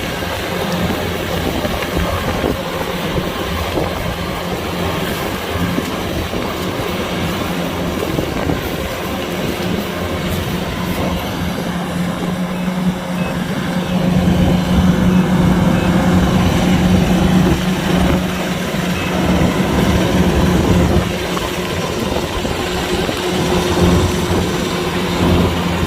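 Kubota DC-105X combine harvester running steadily while harvesting: a diesel engine hum under the noise of the cutting and threshing machinery, growing louder for a few seconds a little past halfway.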